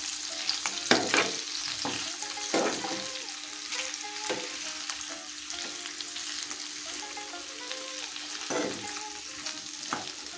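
Sliced onions sizzling in hot oil in a pan while being stirred, with several separate scraping strokes of the spatula against the pan.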